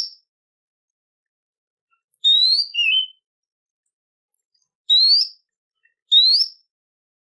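A songbird giving short, loud, rising whistled calls with long silent gaps between them: one ending as the sound begins, then three more, the first followed by a lower, shorter note. This is a recorded master song played to coax kacer (magpie-robins) into singing.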